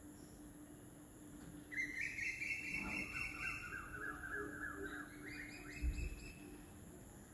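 A songbird singing one long phrase of fast trills and quickly repeated notes, starting about two seconds in and lasting about four seconds. A steady low hum runs underneath, with a brief low thump near the end.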